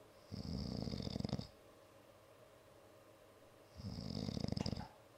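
A person snoring: two snores about three and a half seconds apart, each lasting about a second, with a fast rattling buzz.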